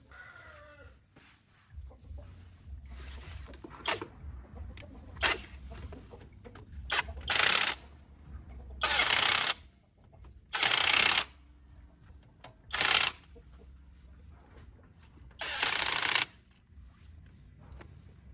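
Five loud, short bursts of hissing, each about half a second to a second long, with a few fainter, shorter ones before them. A rooster crows faintly at the very start.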